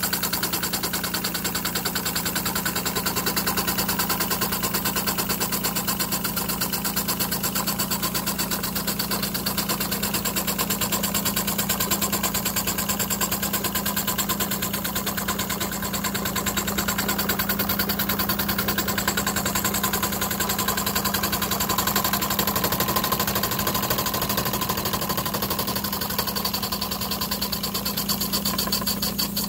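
Model live-steam engine running steadily, with a fast, even chuffing and clatter over a constant hiss as it drives belts and a line shaft.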